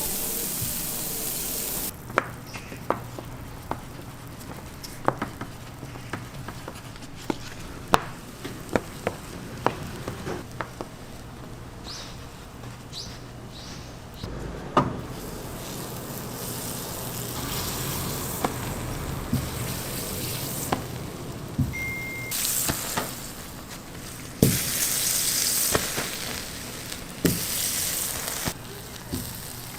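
Food sizzling as it fries, with many sharp taps and clicks. The sizzle drops off suddenly about two seconds in, then builds again in the second half, loudest in two surges near the end. A short high beep sounds once midway.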